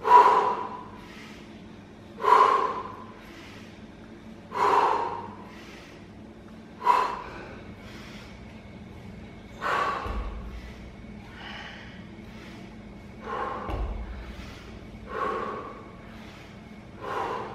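A man breathing out sharply with each rep of kettlebell bent-over rows: a short, forceful breath about every two seconds.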